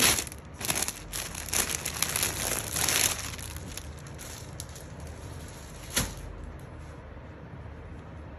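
Clear plastic packaging crinkling and rustling as a wrapped fabric suit is handled, for about the first three seconds. Then one sharp tap about six seconds in.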